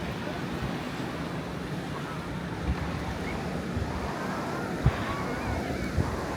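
Steady wash of surf on a sandy beach, with wind buffeting the microphone in a few short low thumps near the end.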